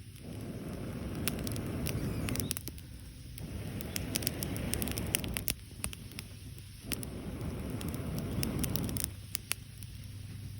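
Wood fire crackling and popping with scattered sharp snaps, under three swells of low rushing noise of about two seconds each.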